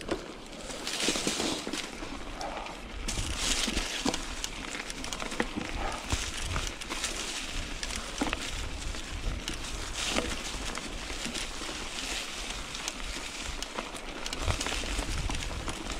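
Bicycle tyres rolling fast down a forest trail, crunching and crackling over leaves and twigs, with scattered knocks and rattles and a low wind rumble on the microphone.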